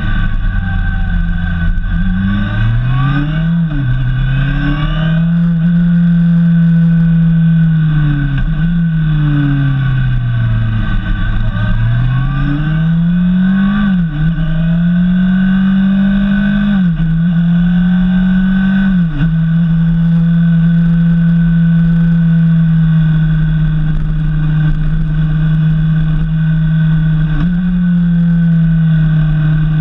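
Honda CBF 600's inline-four engine running under way, heard from a camera mounted on the motorcycle. For the first twenty seconds the revs fall away and climb again several times, with sudden drops in pitch at the gear changes. Then the engine holds a steady speed.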